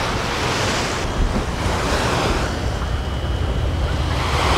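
Steady wind rushing over the microphone, with a heavy low rumble, over small waves washing onto a sandy beach.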